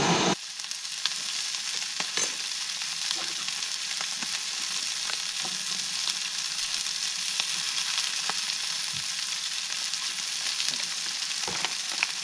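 Food sizzling as it fries in a pan: a steady high hiss with scattered small pops and ticks.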